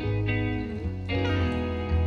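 Background music with plucked guitar notes.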